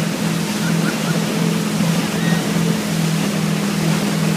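A steady low motor drone held at an even pitch under a constant rushing hiss.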